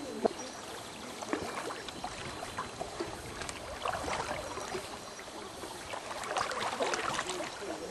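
River water rushing and splashing around a coracle, with irregular splashes from its single paddle dipping and pulling through fast-running water.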